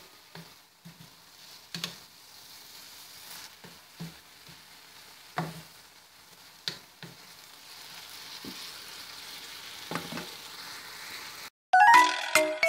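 Pancit noodles and vegetables being stirred in a pan, with a faint sizzle and a few sharp knocks of the utensil against the pan. Near the end the sound cuts off for a moment and a louder chiming music jingle starts.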